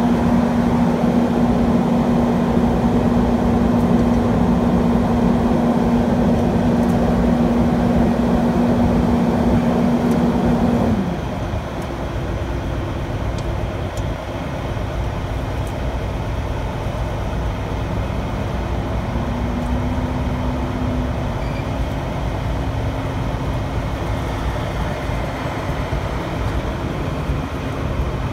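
A vehicle engine runs with a steady drone and a strong hum. About 11 seconds in, the hum dips slightly in pitch and the whole sound drops to a lower, steady level.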